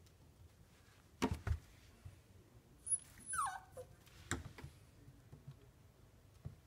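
Siberian husky puppy giving one short whimper that falls in pitch, about three and a half seconds in. Two loud knocks come about a second in, and another knock just after the whimper.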